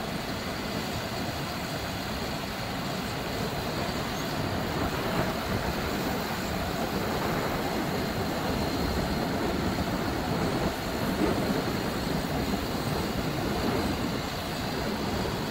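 Ford F-750's Cummins 6.7-litre diesel engine running steadily, a little louder from about four seconds in.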